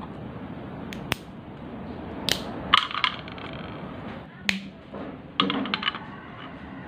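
Dried cinnamon sticks being snapped by hand into small pieces: a scattered series of sharp cracks and short crackles, about half a dozen in all.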